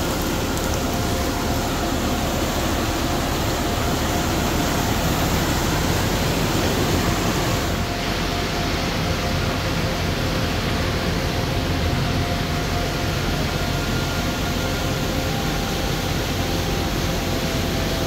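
Steady rush of white water from a mountain stream and waterfall, an even noise with no breaks.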